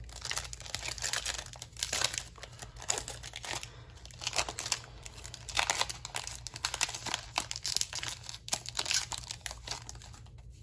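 Foil wrapper of a trading card pack crinkling and tearing as it is ripped open by hand, with irregular crackles throughout.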